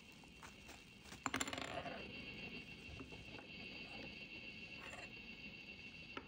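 Small hard plastic parts of a mini desktop basketball hoop clicking and knocking as they are fitted together. A quick cluster of sharp clicks comes about a second in, with a few lighter ticks after it.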